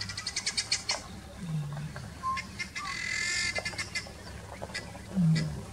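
Birds calling: a quick run of clicking, chattering notes at the start and a harsher, higher call about three seconds in. Two short low falling sounds come at about a second and a half and near the end, the second the loudest.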